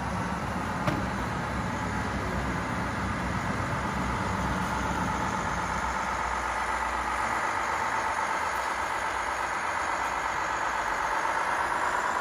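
Radio-controlled scale model trucks running: a steady whine from the motors and gearing over a low engine-like rumble that fades about halfway through, with a short click about a second in.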